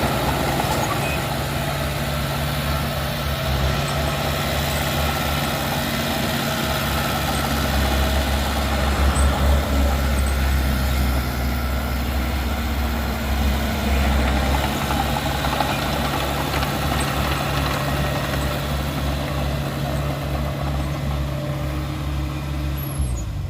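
Heavy diesel engine of earthmoving machinery running steadily, with a deeper, louder rumble from about eight to fourteen seconds in. Its note drops just before the end.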